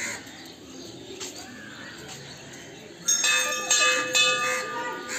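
Metal temple bell struck three times in quick succession about three seconds in, each stroke ringing on with several clear, steady tones that keep sounding after the strikes stop.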